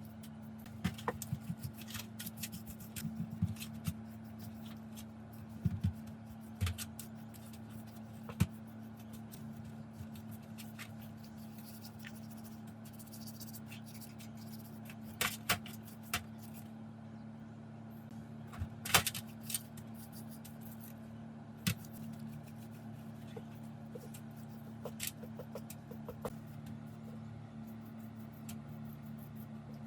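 Scattered clicks, light knocks and scrapes of small metal parts being handled and worked, over a steady low hum. The sharpest knock comes about two-thirds of the way through.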